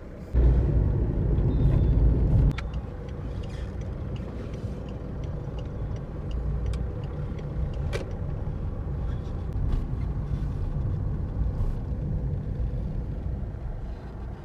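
A car driving slowly, heard from inside the cabin: steady low engine and road rumble that is louder for about two seconds near the start, with a few faint clicks and knocks.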